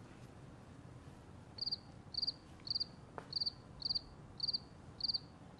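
Crickets chirping, a regular series of short high trills a little under two a second, starting a couple of seconds in: the stock 'crickets' sound effect for an awkward silence.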